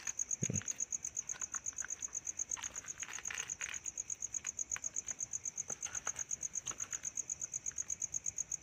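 An insect chirping steadily at one high pitch in rapid even pulses, about seven a second, with faint scattered ticks and rustles beneath it.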